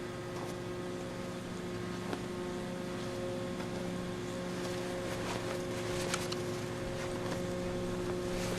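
Gas-engine wood chipper running at a steady drone, with scattered sharp clicks and ticks over it.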